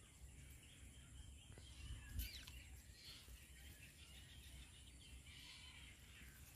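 Near silence with faint small birds chirping and trilling, and one sharp click about two seconds in.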